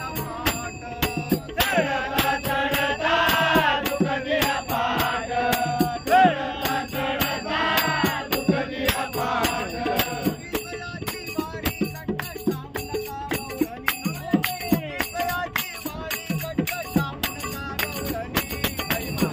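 An elderly man singing a Marathi devotional bhajan, his voice strongest in the first half, over a steady beat of jingling percussion.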